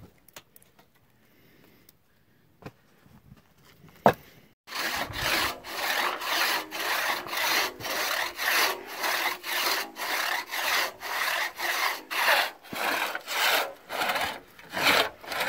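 A few scattered knocks, then, about four and a half seconds in, a six-foot two-man crosscut saw starts cutting through a log in steady strokes, about two a second, the saw cutting on both the push and the pull.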